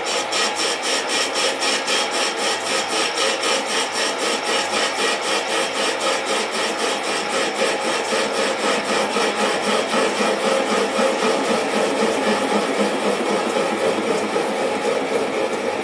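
Sieg SC4 bench lathe running with its tool taking a facing cut across the end of a cast iron bar held in a three-jaw chuck. The cut sounds as a steady scraping with a regular pulsing about four to five times a second.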